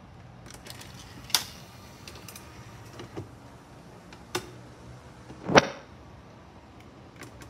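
Sony CMT-HPX9 five-disc CD changer drawer being closed and its changer mechanism working: a series of short mechanical clicks and clunks, the loudest and longest about two thirds of the way through, over a faint steady hum.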